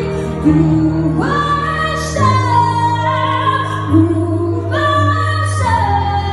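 Slow ballad music: held chords under a sustained melody line that glides between long notes.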